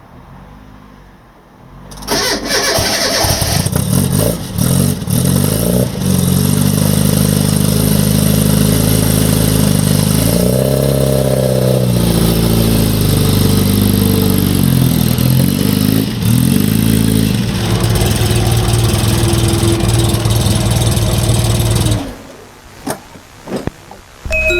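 Classic Mini 1275 GT's A-series four-cylinder engine cranking and starting about two seconds in, running and revved up and back down a couple of times, then switched off a couple of seconds before the end.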